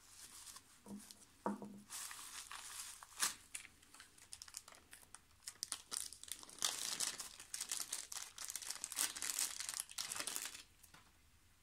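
Plastic bubble wrap crinkling and rustling as it is pulled off a foam packing block by hand, in irregular crackles that are densest in the last few seconds.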